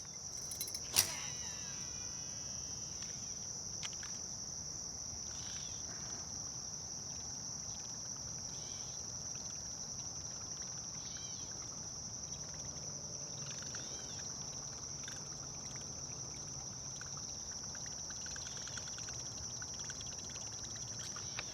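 Steady high-pitched chorus of insects, with one sharp click about a second in and a few faint chirps over it.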